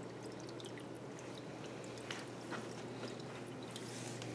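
Faint steady low hum from aquarium equipment, with a few soft ticks.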